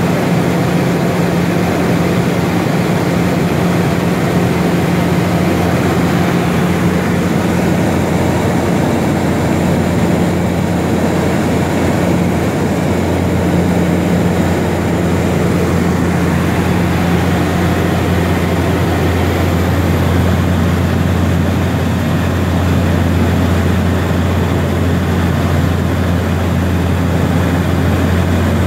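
Cabin noise of a de Havilland Turbine Otter's GE H80 turboprop engine and propeller in flight, a loud, steady drone. A deeper hum grows stronger about eight seconds in and holds.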